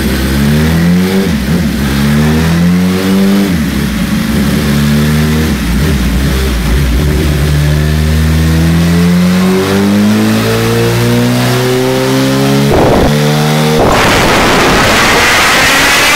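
1992 Suzuki GSX-R inline-four revving hard on a dynamometer, its pitch climbing in long sweeps through the gears and dropping briefly at each shift. Near the end a loud rushing noise takes over.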